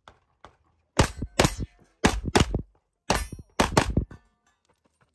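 Gunshots fired in quick pairs, about six shots in three doubles, each with a sharp metallic clang. This is a competitor shooting a stage at a practical shooting match.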